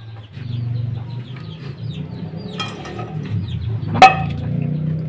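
Chickens clucking, with one sharp knock about four seconds in.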